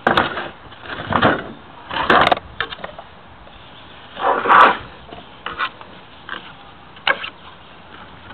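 Handling noises of a sunfish being flipped over and settled on a wooden fillet board: four or five short scraping rustles in the first five seconds, then a few faint taps.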